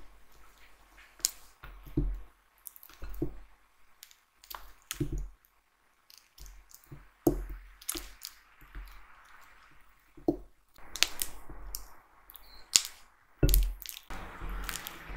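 A silicone spatula pressing and smearing still-firm butter against a glass mixing bowl. Irregular soft knocks and clicks come as the spatula meets the glass, with a steadier scraping near the end as the butter softens.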